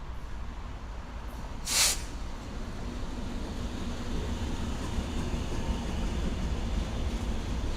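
A train rumbling as it approaches, with the low rumble growing louder, and a brief sharp burst of hiss about two seconds in.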